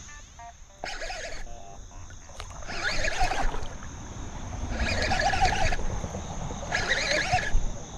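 Baitcasting reel buzzing in four short bursts, each under a second, with a wavering pitch, while a hooked striped bass pulls against the bent rod.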